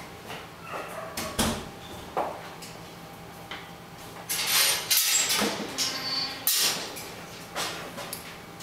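Husky puppy gnawing on a chew stick: irregular clicking, scraping and knocking, loudest in a cluster about halfway through.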